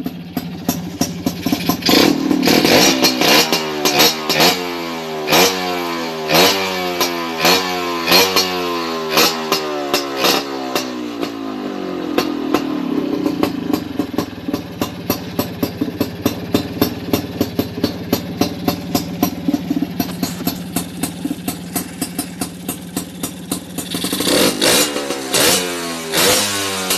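An engine revved in repeated short blips, rising and falling about once a second, then running steadily for a while before blipping again near the end.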